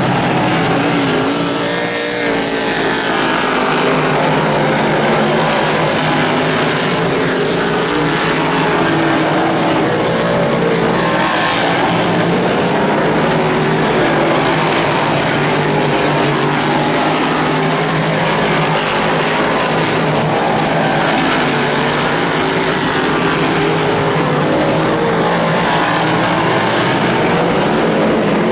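A pack of big-block and small-block V8 dirt modified race cars running around the track, a loud steady engine drone with several pitches wavering up and down as the cars come past.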